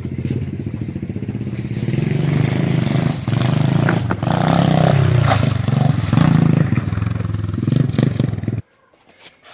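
125 cc pit bike engine running and revving, its pitch rising and falling as it is ridden. It gets louder about two seconds in and cuts off suddenly near the end.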